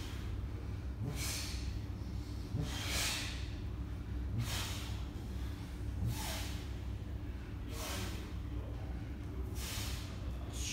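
A man's sharp, forceful breaths, six in all, about one every second and a half, in time with the reps of a sit-up done holding a dumbbell overhead. A steady low hum runs underneath.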